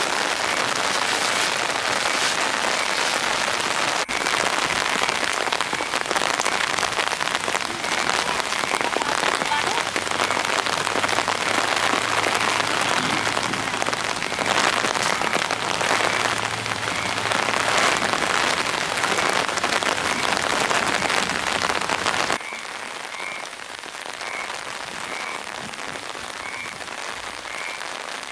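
Steady rain hissing down on flooded rice paddies. Some six seconds from the end it cuts abruptly to quieter rain, with faint chirps repeating at an even pace.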